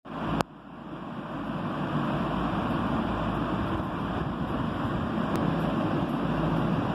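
Steady rumbling hiss of background noise that swells over the first two seconds and then holds, with a sharp click about half a second in and a faint one near the end.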